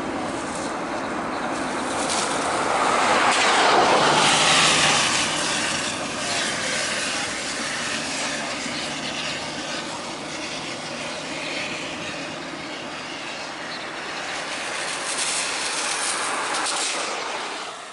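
Jet engines of an Airbus A330-200F freighter at takeoff power as it climbs away. The noise is loudest about four seconds in, with a pitch that drops over the next two seconds, then carries on as a steady roar.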